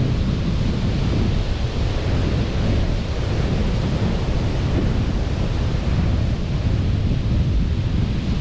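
Wind buffeting the microphone over a steady rushing wash of sea surf: a constant low rumble with no separate events.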